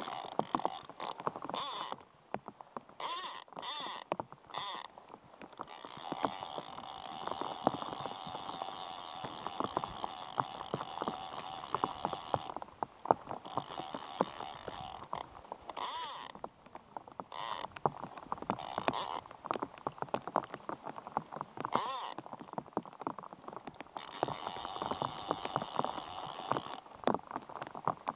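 Fly reel's click-and-pawl ratchet buzzing in bursts as line runs through it while a hooked Atlantic salmon is played: several short bursts at first, a long run of about six seconds in the middle, and another of about three seconds near the end. Rain patters on the river in the gaps.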